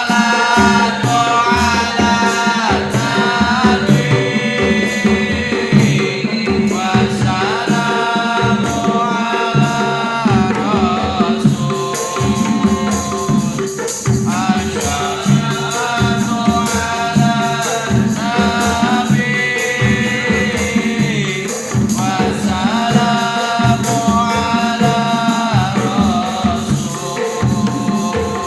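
Sholawat devotional song: a solo voice sings long, held phrases with wavering ornaments over a steady beat of hand drums and tambourine.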